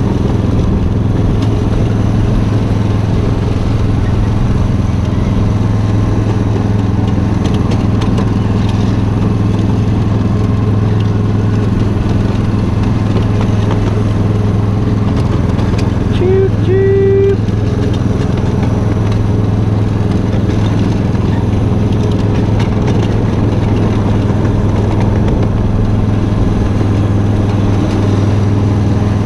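Miniature ride-on train running steadily under way, a constant engine hum. A little past halfway comes a brief steady tone, about a second long.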